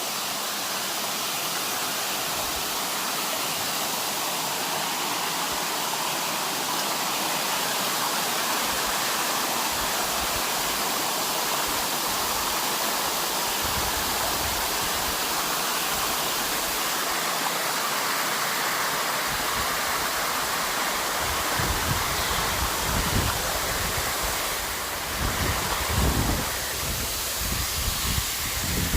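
Waterfall: a steady rush of falling water. Irregular low thumps join it in the last several seconds.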